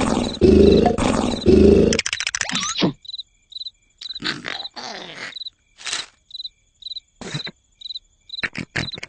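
Cartoon snoring: a loud, rhythmic, growling snore that stops about two seconds in. After it come short high cricket chirps repeating a few times a second, with scattered brief soft noises in between.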